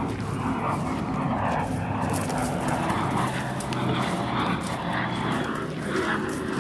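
A small motor running with a steady hum.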